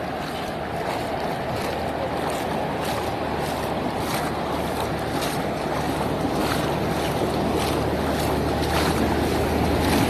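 Steady rushing noise of wind and floodwater on the phone's microphone, with a faint low hum beneath.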